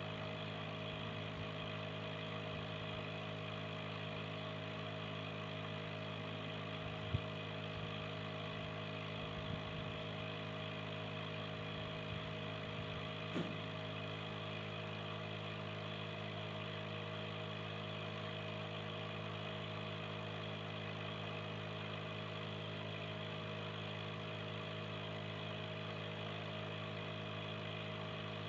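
Aquarium air pump humming steadily as it drives the air stone, with a few brief faint knocks partway through.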